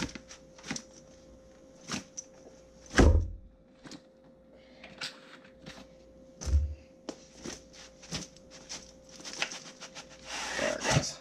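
Cardboard retail box and paper packaging handled by hand: scattered taps and rustles, with two heavy thumps, about three seconds in and again about six and a half seconds in, and a longer rustle of card near the end, over a faint steady hum.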